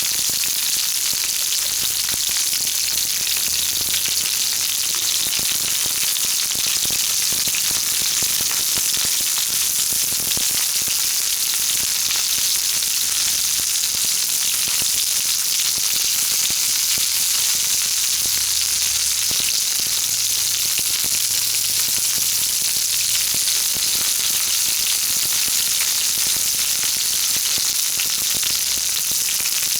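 Jumbo shimeji mushrooms frying in olive oil over a wood fire: a steady sizzling hiss with fine crackle.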